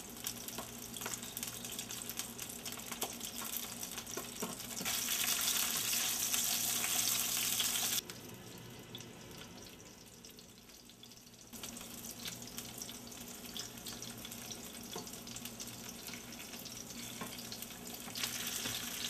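Carp pieces frying in hot oil in a pan: a steady sizzle full of small pops and crackles. It jumps much louder about five seconds in for a few seconds, drops abruptly to a quieter sizzle, and comes back to the middle level a few seconds later.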